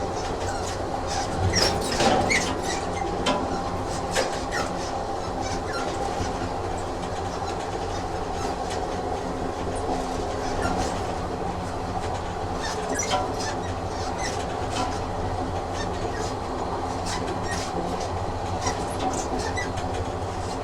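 Train running along the track: a steady rumble and hum with frequent irregular clicks and rattles from the wheels and carriage, and a louder clatter about two seconds in.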